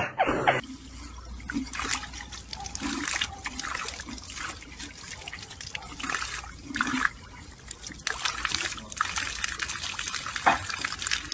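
Water trickling and splashing from a small garden fountain into a rock pond, a stream pouring from a pot spout and falling onto a dog lying in it. A man's laughter cuts off right at the start.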